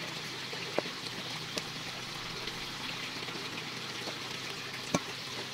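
Kitchen knife slicing raw chicken fillet on a plastic cutting board, the blade knocking the board three times, the last knock near the end the sharpest, over a steady watery hiss.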